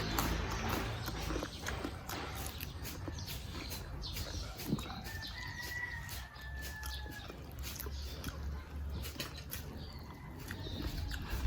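Close-up crunching and chewing of extra-crispy lechon kawali (deep-fried pork belly), many small crackles. A rooster crows once in the background for about two seconds near the middle.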